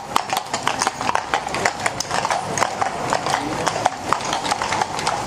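Hooves of a pair of carriage horses clip-clopping on stone paving as the horses pull a carriage past, a quick, irregular run of sharp strikes, several a second.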